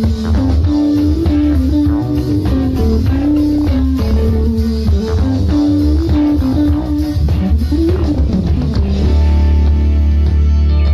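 Jazz-fusion band playing live: a busy melodic line over electric bass and drum kit, with one note sliding up and back down about eight seconds in and a held low note near the end.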